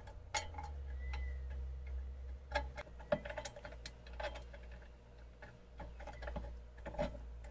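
Small irregular metal clicks and taps of a nut, washers and bolt being handled and started by hand in a steel step bracket, over a low steady hum.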